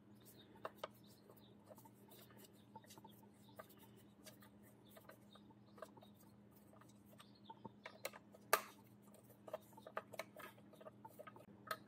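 Faint, scattered small metallic clicks and ticks of a long hex key working the brake caliper bolts on an electric scooter, with one sharper click a little past the middle, over a faint steady hum.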